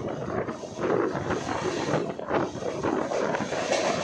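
Wind buffeting the microphone over the running noise of a passenger train in motion, rising and falling in gusts.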